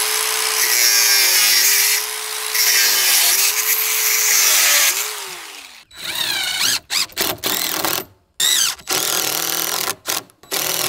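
DeWalt angle grinder cutting through metal wire, its motor tone wavering as it bites and eases off, for about five and a half seconds. Then a DeWalt DCF885 impact driver runs in several short trigger bursts, driving screws into a steel door hinge, each burst rising in pitch as the motor spins up.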